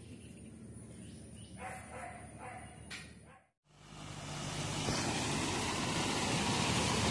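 A few faint dog barks, then after a sudden cut a Tata heavy truck's engine running with a steady low hum under the rush of water splashing as the truck drives through floodwater, growing louder.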